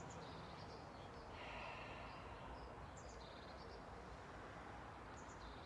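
Faint outdoor ambience: small birds chirping now and then, with a brief high trill, over a low steady rumble.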